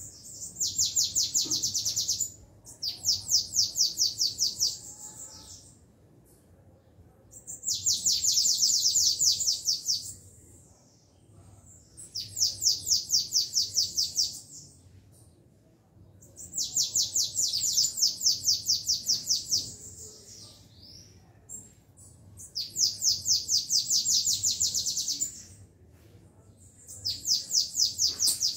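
Caged songbirds, a Belgian canary and a sibite, singing against each other in a contest. They give about seven loud bursts of fast, evenly repeated high trilled notes, each phrase about two seconds long, with short pauses between.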